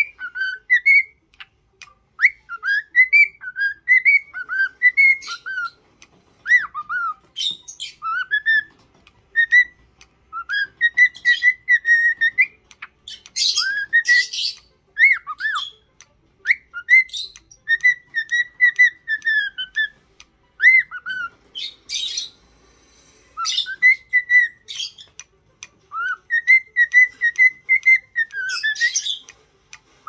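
Cockatiel singing to its reflection: a run of short warbling whistled notes that glide up and down, broken by harsh squawky chatters around the middle, about three-quarters through, and just before the end.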